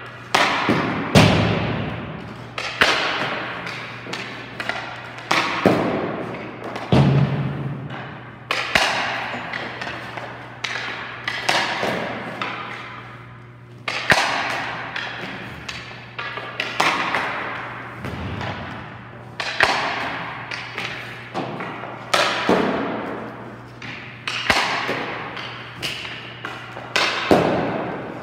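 Hockey pucks shot at a goalie one after another: a sharp crack of stick on puck and puck on pads, glove or boards about once a second, each ringing on in the rink's echo. A low steady hum runs underneath.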